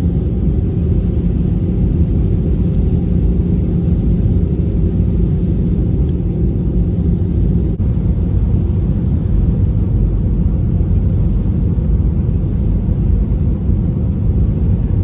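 Steady low rumble of an airliner heard from inside the passenger cabin: engines and airflow, with no marked rise or fall.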